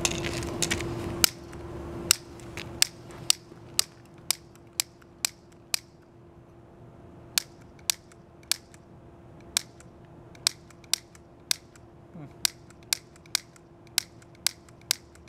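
A series of sharp clicks, roughly two a second, with a pause of about a second and a half midway, over a steady low hum. A rush of noise at the start dies away within the first couple of seconds.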